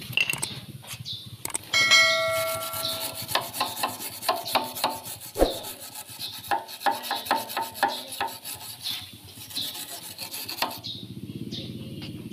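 Hand wire brush scrubbing the brazed repair on a metal radiator tank, rapid rasping strokes of metal bristles on metal. A short metallic ring sounds about two seconds in, and the scrubbing stops near the end.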